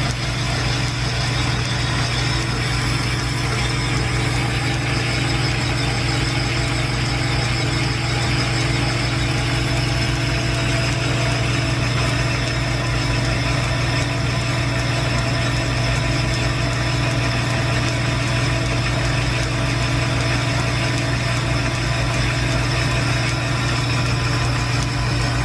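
Belt-driven metal lathe running steadily off the shop's line shaft, turning down a steam engine piston that has been built up with brass brazing to make it oversize. A constant low machinery hum with a steady grinding noise over it, unbroken throughout.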